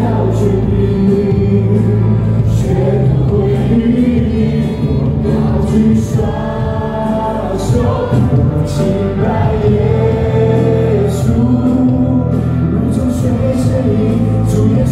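Live gospel worship music: a choir and lead singers singing a praise song with a band, the congregation singing along.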